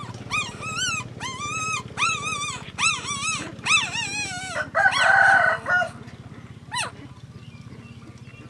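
Young puppy crying: a quick string of about a dozen short, high-pitched whines, each rising and falling. The loudest is a harsher, longer cry about five seconds in, followed by one brief whine near seven seconds.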